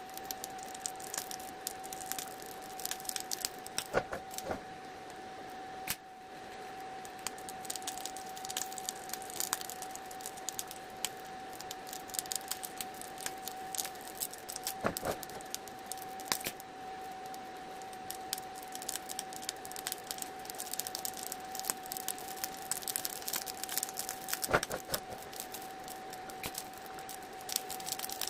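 TIG welding arc running a no-filler pass at about 69 amps on a steel clutch housing: a steady high whine with continuous fine crackling. A few sharper clicks come through along the way.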